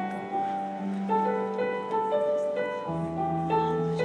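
Electronic keyboard with a piano sound playing slow broken chords over held bass notes; the bass note steps down about three seconds in.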